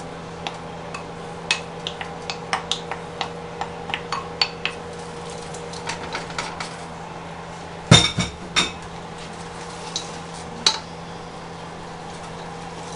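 Frozen peas and carrots clattering into a metal cooking pot from a bowl, with a wooden spoon scraping and tapping against the bowl and pot: a run of light clicks and knocks, with a few louder knocks about eight seconds in.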